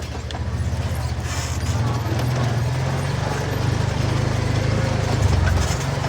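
2023 Kawasaki Teryx 4S side-by-side's 783cc V-twin engine running on a test run after a fresh oil change, getting louder as it pulls away about two seconds in.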